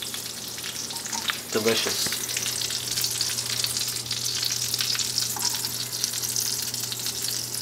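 Bacon and its grease sizzling in a hot frying pan: a steady hiss with fine crackles and pops.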